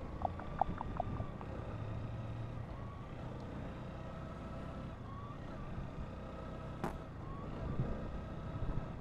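Honda CBR125's small single-cylinder four-stroke engine running under way, with road and wind noise, its pitch shifting about five seconds in. A few short ticks sound in the first second and a single sharp click about seven seconds in.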